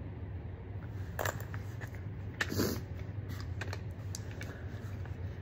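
Handling noise: irregular light clicks and knocks as an AR-15 rifle and a box of 5.56 cartridges are handled, the two strongest about one and two and a half seconds in, over a steady low hum.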